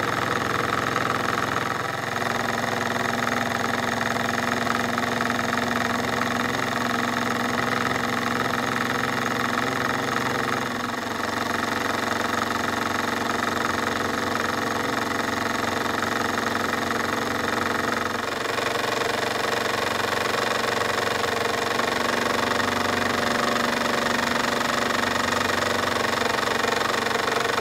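Jensen 25G model steam engine running steadily under steam, with a fast, even run of exhaust beats and the whir of the belt-driven dynamo it powers to light a small bulb. The pitch shifts slightly a couple of times.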